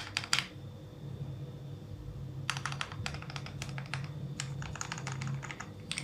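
Mechanical keyboard fitted with lubed linear switches (Akko CS Rose Red and Gateron Pro Milky Yellow), typed in fast runs of about eight key clacks a second. The run at the start ends about half a second in; two more runs follow after a pause of about two seconds.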